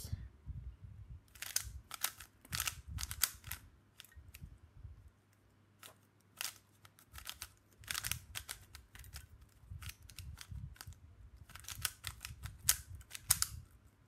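MoYu Weilong GTS3M magnetic 3x3 speed cube being turned during a solve: quick clusters of sharp plastic clicks and clacks as the layers snap into place, broken by a couple of short pauses.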